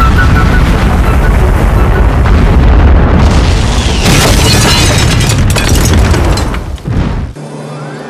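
Explosion: a long, loud, deep rumbling boom with crackling that is brightest from about four to six seconds in. It cuts off suddenly shortly before the end, giving way to music.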